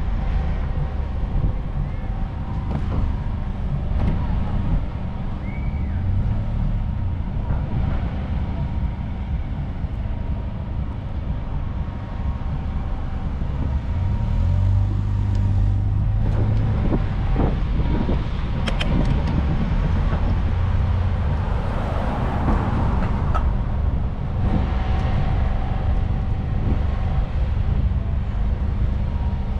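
Street traffic: car and van engines running close by as a steady low rumble, with a few short clicks and rattles about two-thirds of the way through.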